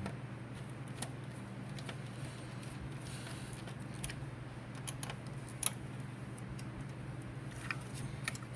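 Scattered light metallic clicks and ticks from a screwdriver turning the screws that hold a motherboard in a computer case, over a steady low hum.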